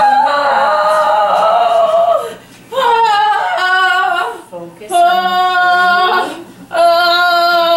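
A woman in unmedicated labour vocalizing through a contraction: four long, held, high notes in a row, each about one and a half to two seconds, with a short breath between them.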